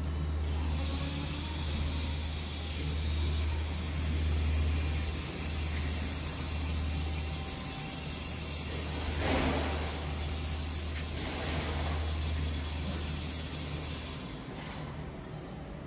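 Steady low machine hum with an even high hiss, swelling briefly about nine seconds in; the hiss drops away near the end.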